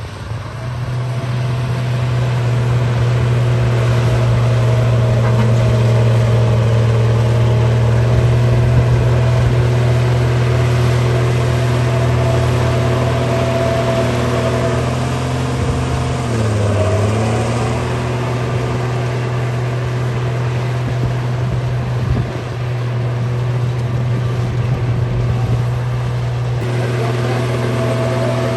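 Bulldozer's diesel engine running steadily at working revs. About sixteen seconds in its pitch dips briefly, the engine pulling down under load, then comes back up.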